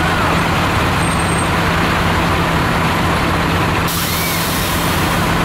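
Diesel school bus engine running with a steady low drone as the bus pulls away. About four seconds in, a sudden sharp hiss of air starts, typical of the bus's air brakes releasing.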